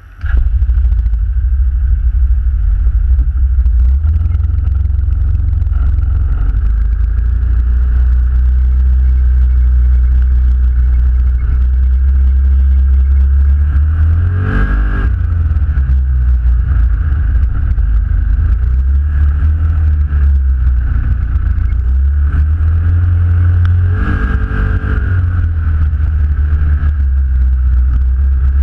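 Vehicle driving slowly over dirt and grass, picked up by a camera mounted on its hood: a loud, steady low rumble. The engine swells briefly about halfway through and again near the end.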